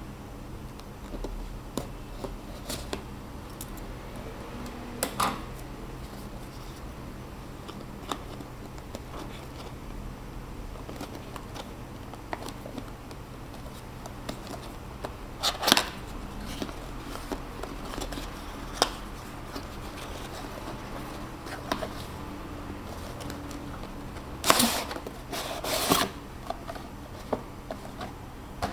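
Packaging and small parts being handled: scattered light clicks and rustles, with a few louder rustling bursts, the loudest two close together near the end. A steady low hum runs underneath.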